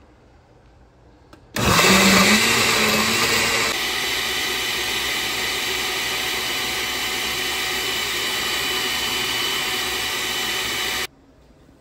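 Countertop glass-jar blender switched on about a second and a half in, chopping chunks of onion, garlic, ginger and peppers in a little water. It runs loudest for the first two seconds while its pitch rises, then settles to a steady run as the mix turns to purée, and cuts off suddenly near the end.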